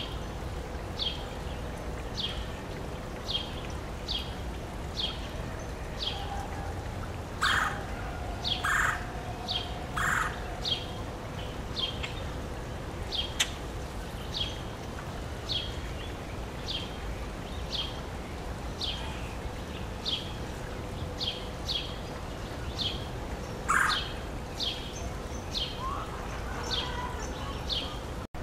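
Male red-bellied woodpecker calling: three loud rolling, falling calls about a second and a half apart near the middle, and one more later. Underneath runs a steady series of short high chip notes, about three every two seconds, over a faint steady hum.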